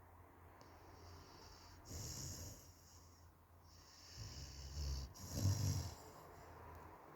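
Dog snoring in its sleep: a hissing breath about two seconds in, then a low, buzzing snore followed by the loudest breath a little after five seconds.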